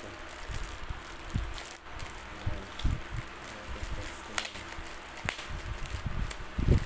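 Clear plastic bag crinkling as it is handled and pulled open, with scattered sharp crackles and a few dull bumps, the heaviest near the end.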